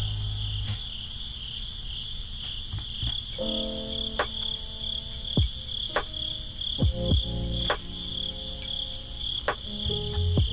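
Crickets chirping in a steady, pulsing chorus, under soft lo-fi background music with held chords and a few sparse beat hits.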